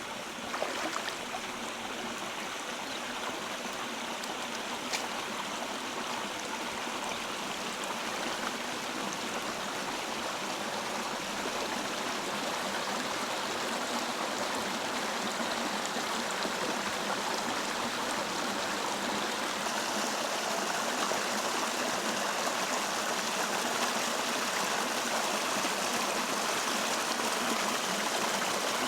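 Steady rush of flowing river water, with a couple of faint knocks about a second in.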